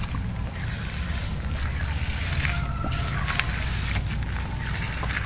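Stream of liquid fertilizer solution from a hose splashing steadily onto plastic mulch and soil at the base of chili plants, as the plants are drenched at the roots.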